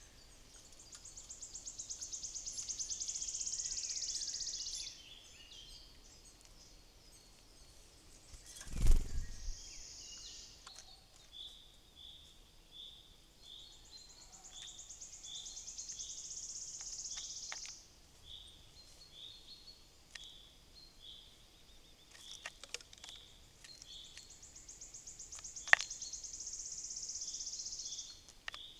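Wild songbirds singing: a high, even trill lasting about four seconds is repeated three times over a steady series of short chirps at about two a second. A single dull thump about nine seconds in is the loudest sound, and a few sharp ticks come near the end.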